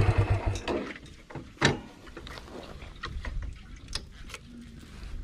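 Motorcycle engine idling, then shut off and dying away within about the first second. After it come scattered clicks and light knocks, the sharpest about a second and a half in.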